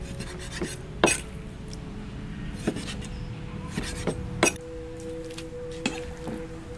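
A knife chopping raw pork on a wooden chopping board: about eight separate, irregularly spaced knocks, with a loud one about a second in.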